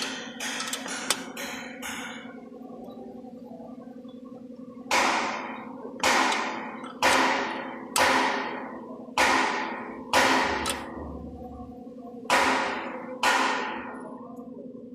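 Hammer blows on metal: a few quick lighter taps at the start, then eight heavier strikes about one a second from about five seconds in, each ringing briefly. A steady hum runs underneath.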